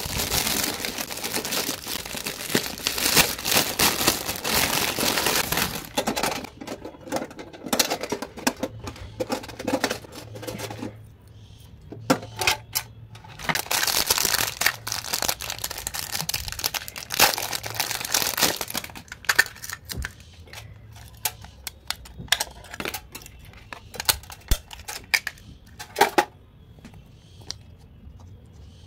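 Cellophane plastic wrap crinkling and tearing as it is pulled off, in two long stretches, with scattered clicks and taps of small items and a metal tin box being handled in between and near the end.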